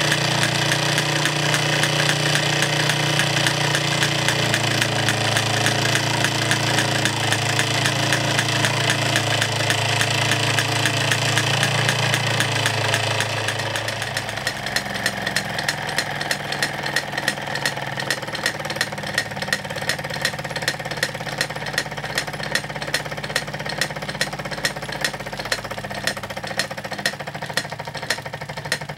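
Early post-war Fyne Machinery toy steam engine running: its single cylinder beats fast and rattles as it turns the belt to a small driven model. About halfway through it becomes quieter, leaving an even ticking beat.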